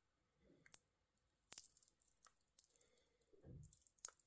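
Faint clicks of a Hanhart Pioneer TachyTele chronograph's pushers being pressed: a handful of separate clicks, the sharpest about a second and a half in, with a soft handling rub near the end.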